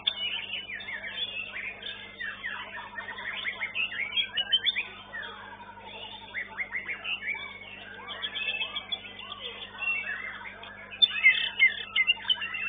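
White-rumped shamas singing at once in a dense, overlapping stream of fast whistled and chattering phrases, loudest in bursts around the middle and near the end. A steady low hum runs beneath.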